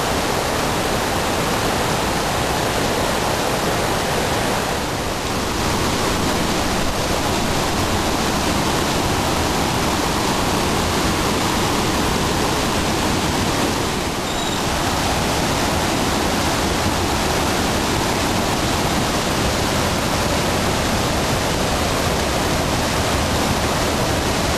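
Whitewater rapids of a boulder-strewn mountain river rushing loudly and steadily, dipping slightly twice.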